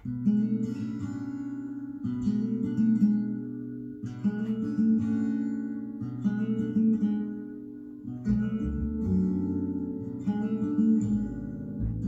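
Acoustic guitar music with strummed chords that come back about every two seconds. The piece starts abruptly, right where the previous track cuts off.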